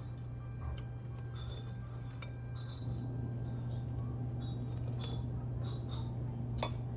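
Steady low hum with scattered light clicks and clinks of dishes and cutlery at a dining table.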